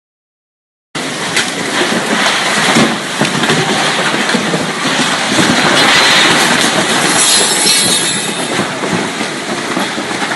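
Loud, rough, steady roar of a violent storm, with wind and water rushing hard and small knocks and clatter through it. It starts abruptly about a second in, out of dead silence.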